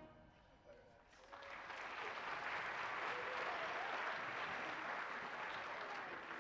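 Concert audience applauding steadily, starting about a second in after a brief quiet at the end of the band's piece.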